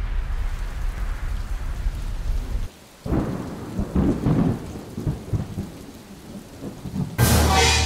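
Thunderstorm sound effect: steady rain with low rolling thunder, a brief dip before the rumble returns, and a sudden loud thunderclap near the end.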